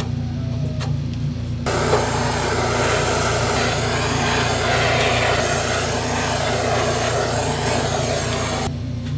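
Handheld gas torch blowing its flame over glazed grilled eel pieces to sear them: a steady rushing hiss that starts abruptly about two seconds in and cuts off near the end, over a steady low hum.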